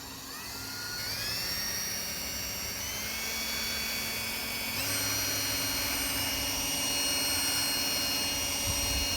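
Small power drill whining as it drills out the rivets of a diecast car. It spins up in the first second, steps higher in pitch twice, about 3 and 5 seconds in, and then runs steadily.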